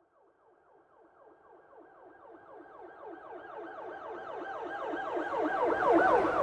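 Police car siren in a fast yelp: rapid up-and-down pitch sweeps, about four or five a second, growing steadily louder from near silence and loudest near the end.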